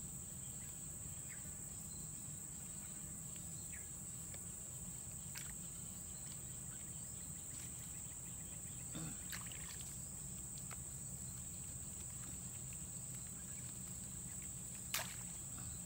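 A steady, high insect chorus keeps up throughout, with a low background rumble. A few faint ticks of handling are heard, and a sharp click comes near the end.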